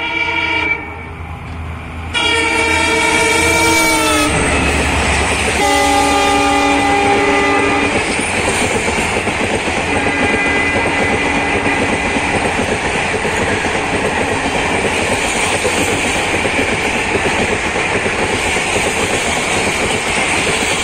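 Indian Railways diesel locomotive sounding its horn in several blasts as it approaches and passes at speed, the pitch of one blast dropping as the engine goes by, with a fainter blast a little later. Then its long rake of passenger coaches rushes past, wheels clattering over the rail joints in a loud, steady rush.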